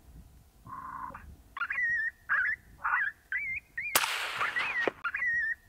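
Repeated high, wavering yelping cries, about two a second, and about four seconds in a single suppressed 6.5 Creedmoor AR-10 rifle shot with a short ringing tail; the yelps go on after it.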